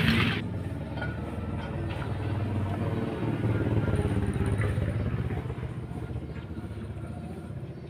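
A vehicle's engine idling steadily, heard from beneath the car by its exhaust muffler. A loud rush of noise cuts off abruptly just after the start.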